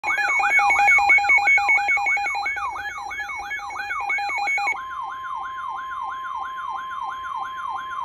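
Several weather alert radios, a Midland among them, sounding their warning alarms together: a sweeping siren-like tone repeating about three times a second over steady tones. About halfway through, a single steady tone near 1 kHz, the NOAA Weather Radio warning alarm tone, takes over beneath the sweeps, signalling an incoming warning.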